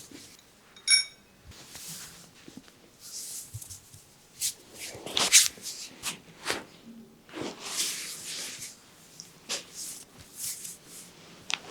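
Hands rubbing and stroking oiled skin in a massage, in irregular soft swishes, with a short sharp ringing click about a second in and the loudest stroke about halfway through.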